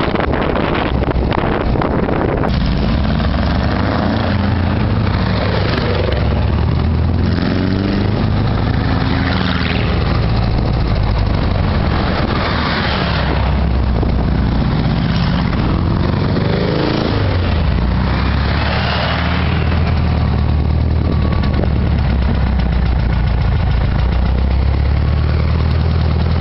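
Trike engine running while riding, with wind rushing over the microphone. Wind dominates for the first couple of seconds. After that a steady low engine drone carries through, its pitch rising and falling a few times with throttle and gear changes.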